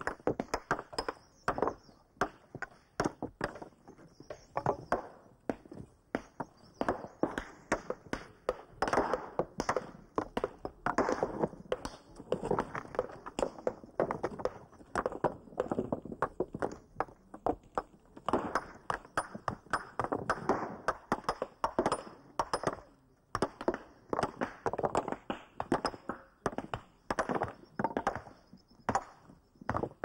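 Hand hammers striking rock and stones knocking and clattering against each other, in sharp, irregular knocks several a second, as rocks are broken and shifted by hand on a rubble heap.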